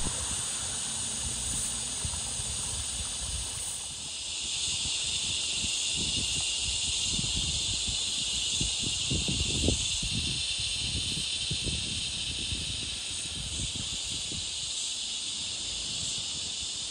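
Insects buzzing in a steady, high-pitched chorus, with irregular low rustling and knocking underneath.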